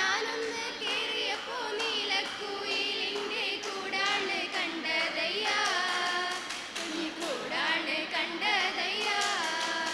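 A group of young women and men singing a song together into stage microphones, several voices at once, with no clear instrumental backing.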